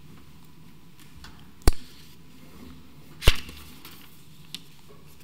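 Two sharp knocks about a second and a half apart, each with a brief ring-out, then a faint tick near the end.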